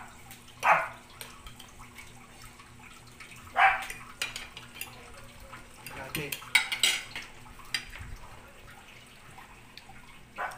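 Spoons and forks clinking and scraping against plates during a meal, with a cluster of sharp clinks about six to seven seconds in.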